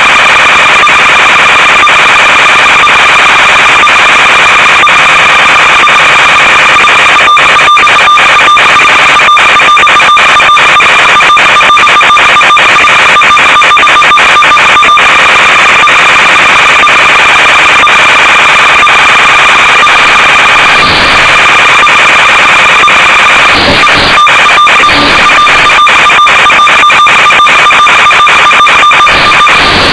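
Loud steady static hiss with two steady high whining tones, the noise of an analog FPV video downlink's empty audio channel. Scattered crackles run through it, with a few short louder bursts in the second half.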